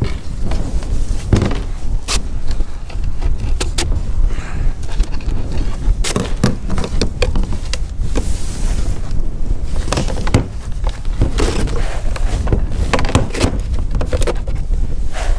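Plastic rainwater downpipe and elbow being handled and fitted: irregular sharp knocks, clicks and scrapes of plastic against plastic and the tank top, over a steady low rumble.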